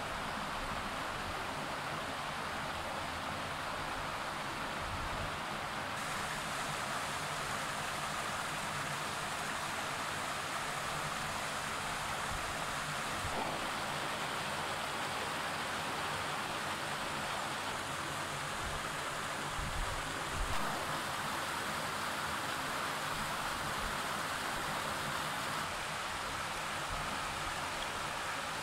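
Steady rushing of a fast, rocky river running over stones, with a couple of soft thumps about twenty seconds in.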